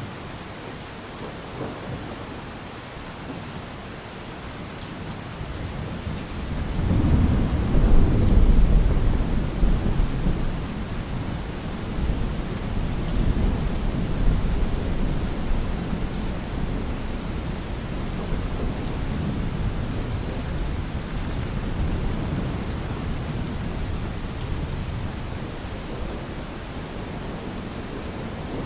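Steady rain with a long roll of thunder that builds about six seconds in, is loudest soon after, and rumbles away slowly.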